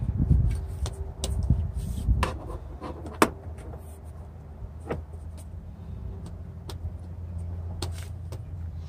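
Several sharp clicks and knocks as a truck windshield wiper arm is worked against its pivot linkage by hand, over a steady low rumble.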